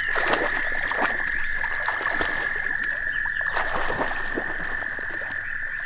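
Water splashing and sloshing as a German shorthaired pointer wades and then swims out through a pond. Under it a steady, high-pitched trilling frog chorus carries on without a break.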